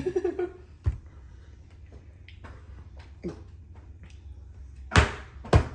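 A few light taps and clicks, then two louder, sharper knocks about half a second apart near the end.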